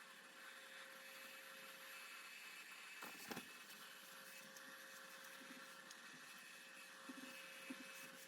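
Near silence: faint steady hiss and a low hum, with a single soft click a little over three seconds in.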